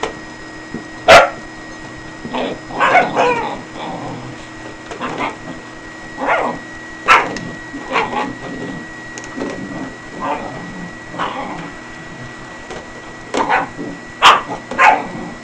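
Dogs barking in short, repeated barks at a running Electrolux vacuum cleaner, whose motor hums steadily underneath. The loudest barks come about a second in and again near the end.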